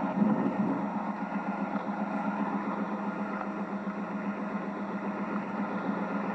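A vehicle's engine running steadily, a constant low hum under road noise.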